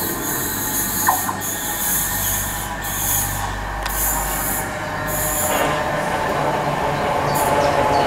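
Southern Class 455 electric multiple unit approaching on a curve, with short high-pitched squeals from the wheels repeating about once a second. Its running noise swells from about two-thirds of the way in and grows louder as it nears.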